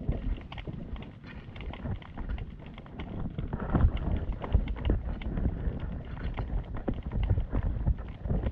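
Small waves slapping and knocking irregularly against a kayak's hull, with wind buffeting the microphone.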